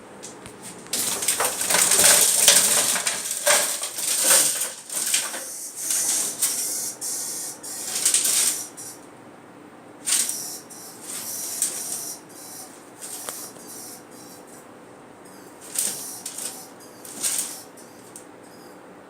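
Animal scrabbling and scraping inside a chimney pipe, in loud hissing rushes that are densest in the first half and then come as shorter bursts. The uploader takes it for a mouse being attacked and then dragged away.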